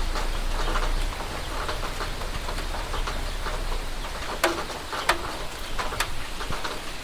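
Steady rain falling, an even hiss with scattered sharper drop taps, three of them standing out in the second half.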